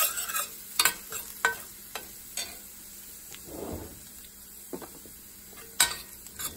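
A stainless steel spoon scraping and clinking against a stainless steel pan while stirring minced garlic in oil, over a faint sizzle. There are a few short scrapes in the first couple of seconds, a lull, then a couple more near the end.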